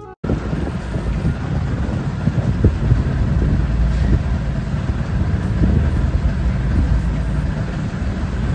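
An outrigger (bangka) boat under way: its engine running with wind buffeting the microphone, a loud, steady low noise that flutters irregularly.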